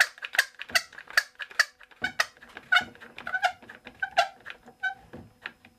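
Quick-Grip trigger bar clamp being squeezed tight: a quick series of sharp clicks with a short ring, about two or three a second.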